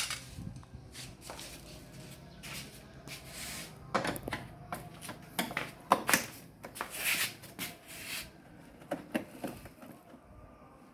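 Irregular clicks, knocks and rustling of objects being handled, spread unevenly through the stretch; no horn sounds.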